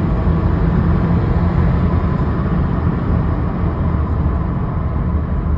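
Subaru Levorg's boxer-four engine and exhaust running steadily, a loud low drone.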